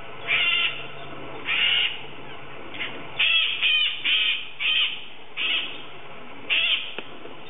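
A parrot giving about eight short, harsh calls, singly and in a quick run of three near the middle, each under half a second.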